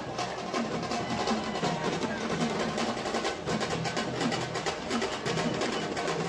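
Drums played fast and without a break, with rolls and sharp snare-like strokes, typical of a Ganpati procession band.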